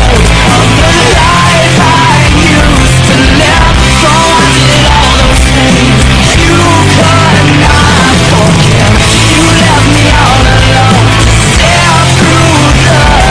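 Loud distorted rock music with heavy bass, in a punk or grunge style.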